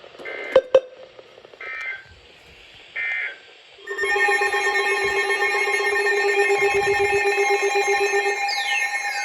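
Three short bursts of two-tone EAS data noise, the end-of-message code after a weather-radio marine warning. They are followed at about four seconds by a loud, steady electronic alert tone made of several pitches, with a fast-pulsing low tone and a falling glide near the end.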